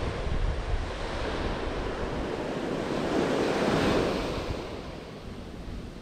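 Ocean surf washing up a sandy beach: a wave swells to its loudest about three to four seconds in, then eases off as it recedes. Wind buffets the microphone underneath.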